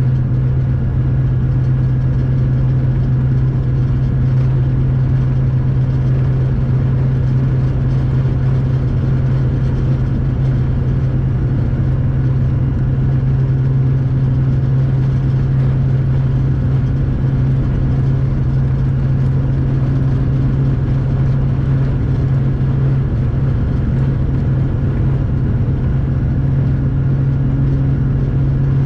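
Steady drone of a 311D diesel locomotive heard from inside the driver's cab: a constant low hum that holds the same pitch throughout.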